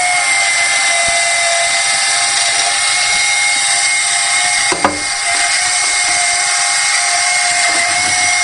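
Small electric motor, most likely the syringe drive of the EMCEE 1140 Micro-Sep, running steadily with a whine over hiss. A single sharp click comes about five seconds in.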